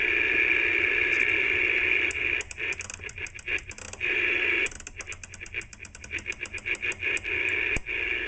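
Cobra 146GTL CB radio receiving steady static on an empty 11-metre band, just a bunch of noise with nobody transmitting. Twice the hiss is broken into a rapid run of clicks, several a second, as the channel selector is turned through the channels.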